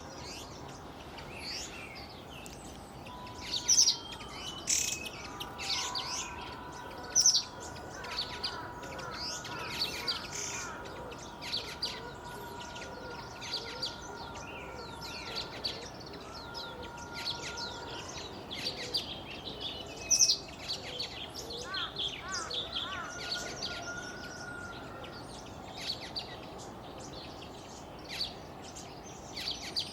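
Black bulbul (Hypsipetes leucocephalus) calling: many short, high calls in irregular bursts, a few of them loud. Beneath them run a steady hiss and long, level tones that last several seconds.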